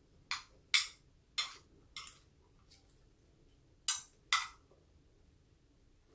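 Metal spoon and fork clinking against a plate while eating: about six short, sharp clinks, unevenly spaced, with a quiet pause in the middle.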